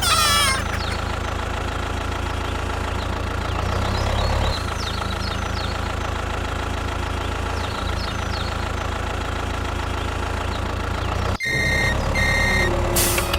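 Vehicle engine idling with a steady drone. Near the end it cuts off suddenly and two short high beeps sound, like a reversing alarm.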